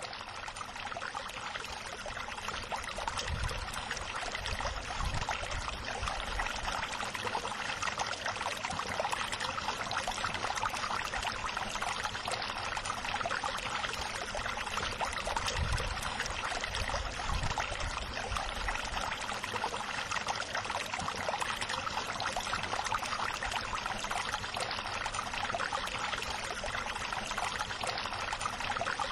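Steady rush of running water, with two short spells of low rumbling, about three seconds in and again past the middle.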